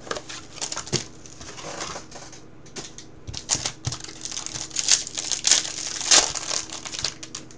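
Clear plastic shrink-wrap being torn off a sealed trading-card box and crumpled in the hands: irregular crinkling and crackling, busiest a little past the middle.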